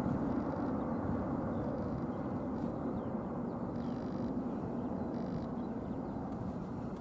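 Jet engine rumble from an Airbus A350-900's Rolls-Royce Trent XWB engines, a steady low roar that slowly fades.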